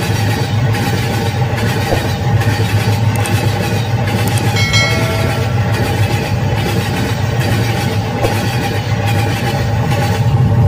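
Battery-powered toy steam locomotive running on plastic track, its small electric motor and gears giving a steady hum. A brief high tone sounds about halfway through.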